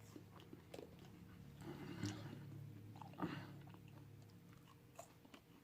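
Faint close-up chewing of food, with small mouth clicks scattered throughout.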